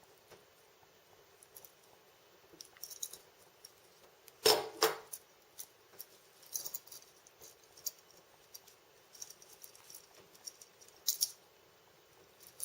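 Scattered light clicks and clinks of Harken pulley blocks and rope being handled, the loudest knock about four and a half seconds in.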